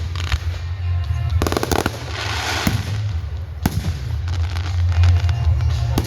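Consumer fireworks going off: a quick run of crackling pops about a second and a half in, and sharp single bangs a few seconds apart.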